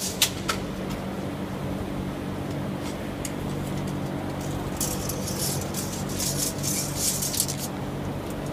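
Steady machine hum with several fixed low tones, with a few sharp clicks just after the start and a spell of high-pitched rustling and clinking from about five to seven and a half seconds in.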